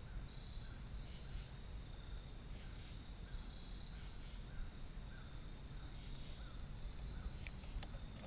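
Faint autumn woodland ambience: insects trilling steadily, with a low steady rumble underneath and a few faint clicks near the end.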